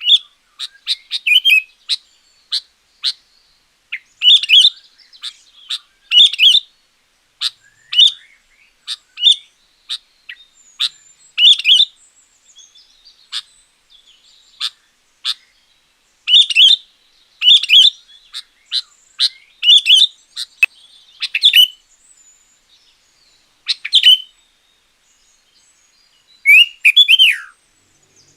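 Sooty-headed bulbul (kutilang) singing loudly: a run of short, sharp chirps and quick bubbly phrases separated by brief pauses, with a longer falling phrase near the end.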